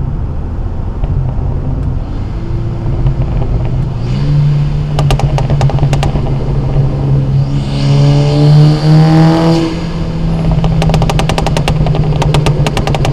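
Car engine and exhaust while driving. The engine rises in pitch under acceleration from about seven and a half seconds in, then eases off about two seconds later. Two runs of rapid ticks come through, one about five seconds in and one near the end.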